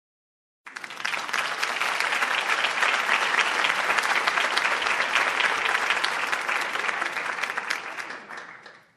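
Crowd applause: many people clapping. It starts abruptly after a brief silence, holds steady, and dies away near the end.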